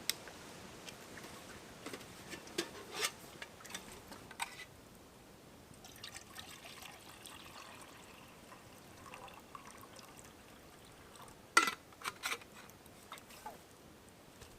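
Water being poured into a pot to bring it to the boil, with a few sharp knocks and clinks of the pot and gear being handled; the loudest knocks come about three quarters of the way through.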